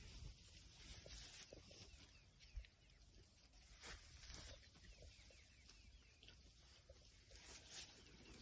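Near silence with faint rustling and scuffing in dry grass as an elephant calf feeds with its trunk and shifts its feet, with a single dull thump a little over two seconds in.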